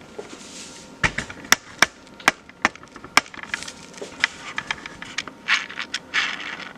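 Handling noise: a string of sharp clicks and light knocks, about two a second, then a few brief rustles near the end.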